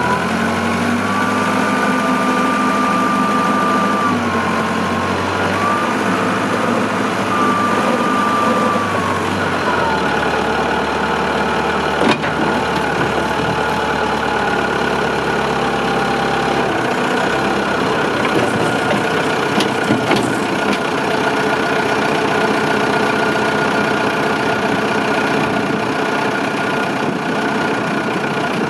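Allis-Chalmers 840 wheel loader's diesel engine revving up and held at raised speed for about ten seconds while the hydraulics work the boom and engine-puller attachment, then dropping back in two steps to a steady idle by about halfway through. A single sharp click comes just after the engine first drops.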